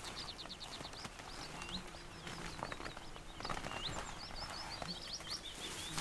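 Small songbirds singing: high chirps, short upward-sliding whistles and a quick run of notes, with a few soft rustles and knocks close by.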